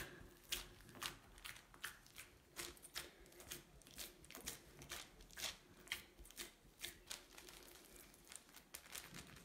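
Hands patting and pressing a soft minced-meat loaf mixture flat on oiled baking paper: faint, irregular soft pats, about two a second.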